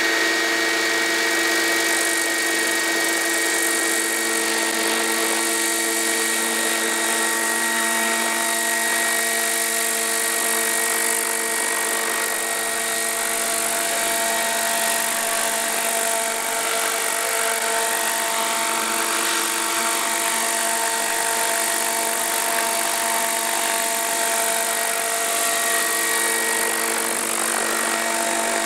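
Giant-scale radio-controlled Airwolf model helicopter with its main and tail rotors at speed, lifting off the grass and hovering low. It gives a steady whine of several tones over a rush of blade noise, wavering slightly in pitch as it takes off.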